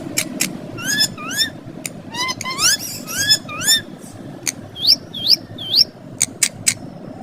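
Green ringneck parrots making short, upward-sweeping chirping calls in quick runs, mixed with sharp clicks.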